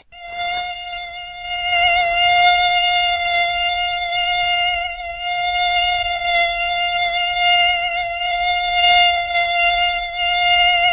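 A mosquito's wingbeat whine: a steady, high-pitched buzz with many overtones that wavers slightly in pitch, broken only by a very short gap at the very start.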